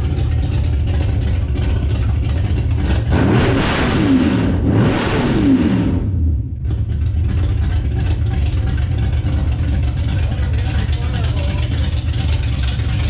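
Car engine with a loud exhaust, idling with a deep steady rumble, revved up and down a couple of times from about three to six seconds in.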